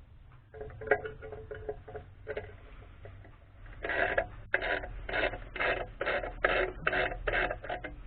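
A few light clicks and knocks, then a run of about eight short scraping strokes, roughly two a second.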